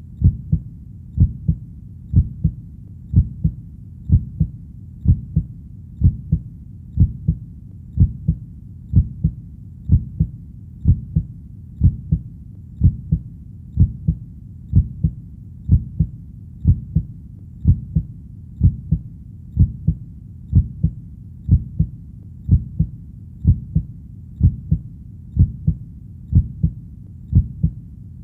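Heartbeat sound: a steady lub-dub of low, dull double thumps, about one beat a second.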